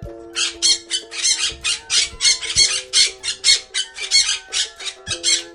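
Parrot squawking in rapid harsh calls, about four a second, over a soft held background music chord.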